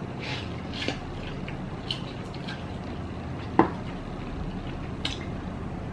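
A person slurping and chewing instant noodles eaten with chopsticks from a paper cup, with soft scattered clicks and one louder knock about three and a half seconds in.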